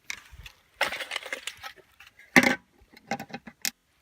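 Airsoft gun shooting: a series of sharp pops and knocks, with a loud one past halfway and a quick run of about six near the end.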